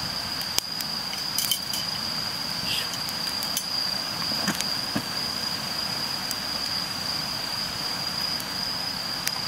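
Crickets trilling in one steady high note, with a wood fire crackling in a small grill stand and giving a few sharp pops.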